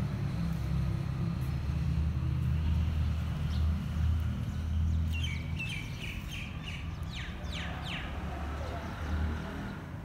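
Sparrows chirping: a quick run of short, falling chirps between about five and eight seconds in, over a steady low rumble.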